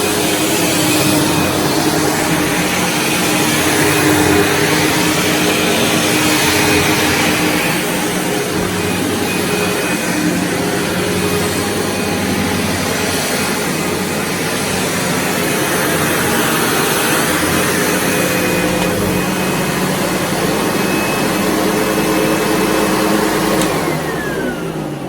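SEBO Automatic X4 bagged upright vacuum cleaner running steadily while it is pushed over carpet. Near the end it is switched off: its motor whine falls in pitch and the sound dies away.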